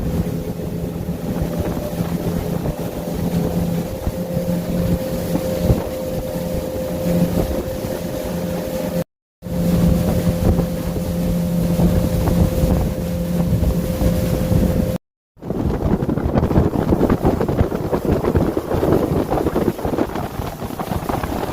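Motorboat engine running at a steady pitch under the rush of wind and water, cut twice by brief breaks. In the last stretch the steady engine tone gives way to gusty wind noise on the microphone.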